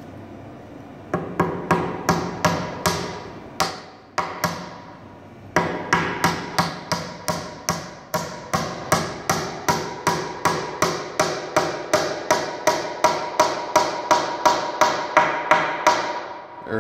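Hammer blows driving wedged, tapered round tenons of sugar maple Windsor chair legs into an eastern white pine seat, each blow ringing briefly. A first handful of blows is followed by a pause of about a second, then a steady run of about three blows a second until near the end.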